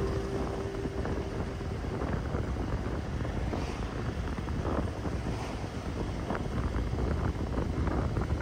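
Wind buffeting the microphone of a moving motorcycle, a steady rumbling rush with the motorcycle's engine and road noise underneath.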